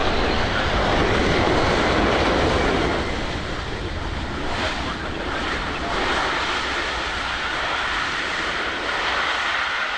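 Boeing 757 freighter's twin jet engines during an arrival: a loud, steady rush of jet noise. It is loudest for the first three seconds, then eases a little, with a higher whine running through it.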